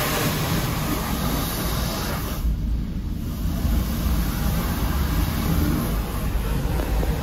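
High-pressure water jets of a Ryko Radius HT touchless car wash spraying the car during the rinse, heard from inside the cabin as a steady hiss over a deep rumble. The hiss drops away about two and a half seconds in as the spray moves off, then builds back.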